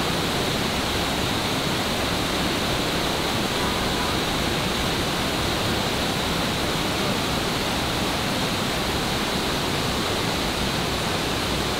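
Steady rush of a waterfall, an even hiss of falling water with no breaks.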